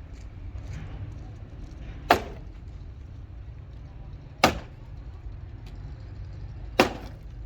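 Three sharp blows, evenly spaced a little over two seconds apart, over a steady low rumble.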